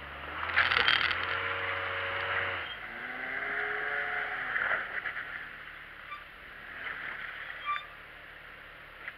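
Jeep engine revving under load in a few rising and falling surges as a tow strap pulls taut in a recovery through muddy water, over a steady rushing noise. It is loudest in the first second or so.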